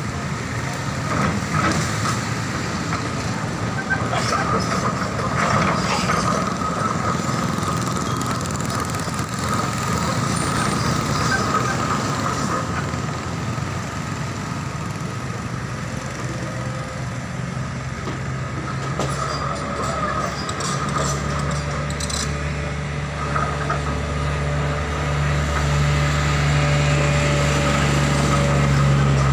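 Hydraulic excavator's diesel engine running steadily, mixed with passing road traffic. About 21 s in a deeper, louder engine drone sets in and holds, growing toward the end.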